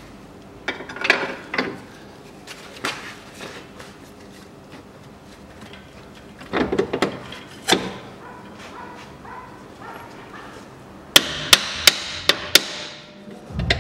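Steel pry bar knocking and scraping against metal as a new rear engine mount is levered and worked into its bracket. Near the end comes a quick run of about five sharp metallic strikes.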